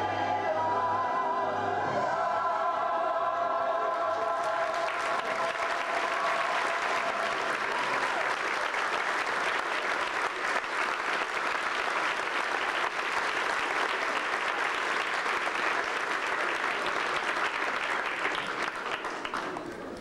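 The last held notes of a song with children's choir singing, then audience applause from about four seconds in that keeps up steadily and dies down near the end.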